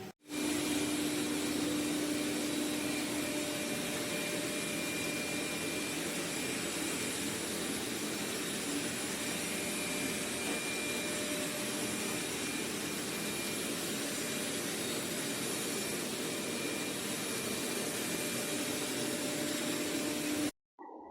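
Xiaomi X20 Pro robot vacuum's suction motor running steadily: an even whirring hiss with a low hum. It starts and stops abruptly.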